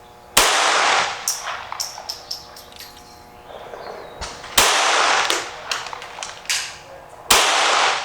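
Three loud gunshots, about four and then three seconds apart, each with a short echoing tail and fainter sharp pops after it.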